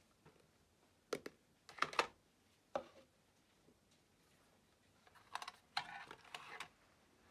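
Painting things being set down on a wooden desk, a few separate knocks and clicks, then a quick cluster of clicks and rattles near the end as a watercolour paint tin is opened.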